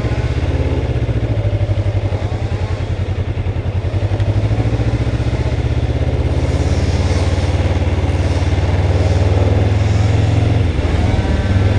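Motorcycle engine running under way, with a steady low exhaust pulse that gets louder about four seconds in.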